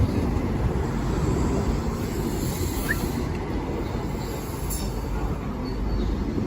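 High Speed Train (InterCity 125) running slowly into a station platform: a steady low rumble of wheels and running gear.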